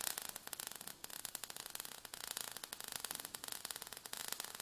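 Sound effect of falling sparks: a fairly quiet, steady crackle of many tiny irregular clicks.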